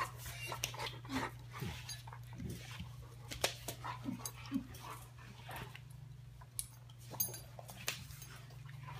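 Two dogs play-biting, a puppy mouthing an older dog's head and neck: scattered soft clicks from mouths and teeth and a few brief low grunts. A steady low hum runs underneath.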